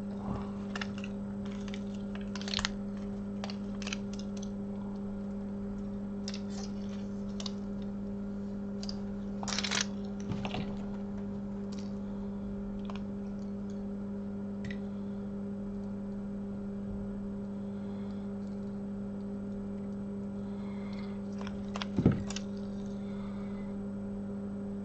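Scattered light clicks and taps of small phone parts and tools being handled on a repair bench, over a steady electrical hum. There is a louder clatter about ten seconds in and another about 22 seconds in.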